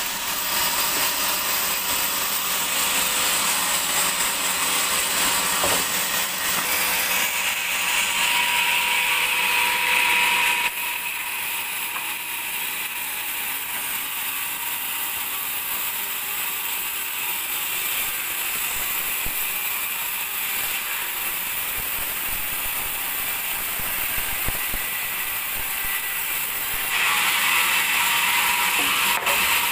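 Band sawmill machinery running steadily with a continuous mechanical rattling hiss. Its tone shifts about a third of the way through and again near the end.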